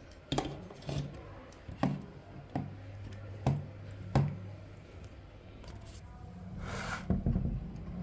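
Handling noise: about six sharp clicks and knocks, roughly one a second, over a steady low hum, then a brief rushing swell near the end.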